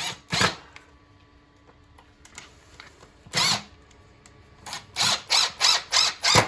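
Workshop tool work: short rasping bursts, two at the start and one more a few seconds in, then a quick run of them about three a second.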